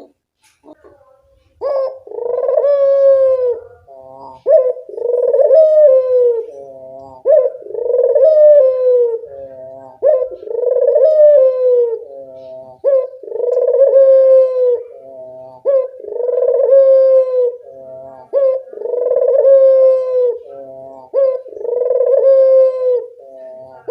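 Barbary dove (burung puter) cooing over and over, starting about two seconds in. Each call is a short note and then a long rolling coo that falls in pitch, and the calls repeat about every three seconds.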